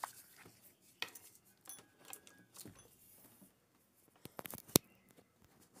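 Marker writing on a whiteboard: scattered light taps and short faint squeaks, then a quick cluster of sharper clicks near the end.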